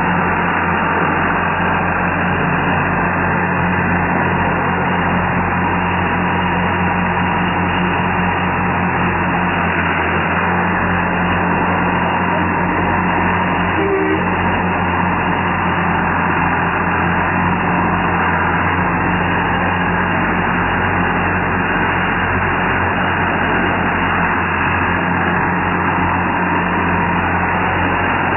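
Massey Ferguson 235 tractor engine running at a steady speed as the tractor is driven slowly.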